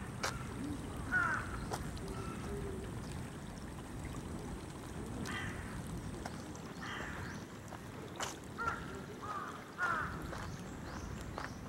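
Crows cawing several times at intervals, over outdoor background with footsteps.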